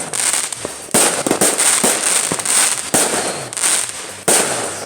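Firecrackers and fireworks going off all around in a rapid, irregular string of sharp bangs and crackles, several a second, with some louder reports about a second in, near three seconds and past four seconds.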